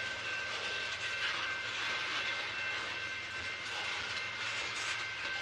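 Freight train cars, boxcars then tank cars, rolling past at steady speed: a continuous rumble of wheels on rail, with a thin steady high tone over it.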